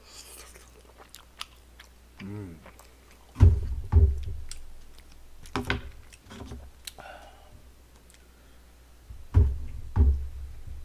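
Close-miked chewing of soft, chewy rice cakes (tteokbokki): wet mouth smacks and clicks, with two spells of heavier low bumps, and a brief hum about two seconds in.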